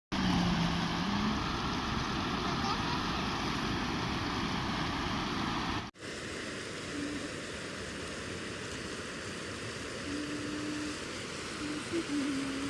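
Steady rush of a river in flood, water running hard and loud. The sound cuts off abruptly and restarts a little quieter about six seconds in, and faint brief tones come and go in the later part.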